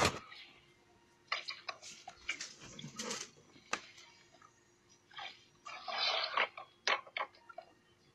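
Water splashing and pouring out of plastic basins and buckets onto a concrete floor, loudest in a splash right at the start and a longer pour about six seconds in, with hollow knocks of the plastic buckets being picked up and set down.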